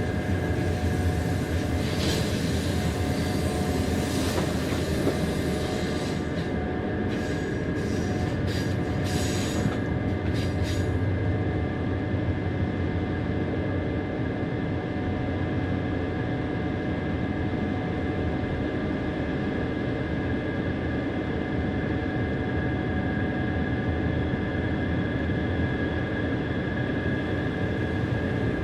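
Train running along the line, heard from on board: steady rumble of the wheels with a constant high-pitched tone over it, and a run of sharp clicks about six to eleven seconds in.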